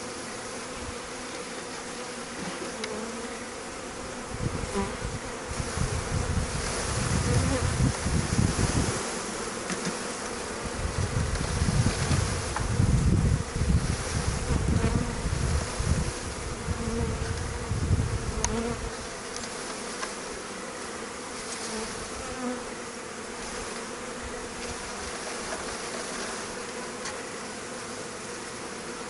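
Honeybees from a package buzzing in a steady hum around an open hive box. From about four seconds to nineteen seconds in, a louder low rumbling comes and goes over the buzz.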